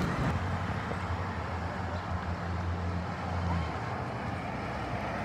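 City bus engine running with a steady low hum, which drops away about three and a half seconds in.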